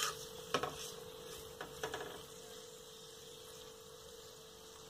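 Metal spoon stirring mashed potato in ghee in a metal kadhai: a few light clinks and scrapes against the pan in the first two seconds, over a faint steady hum.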